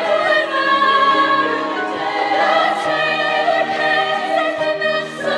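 Show choir singing in sustained harmony, the voices holding long chords.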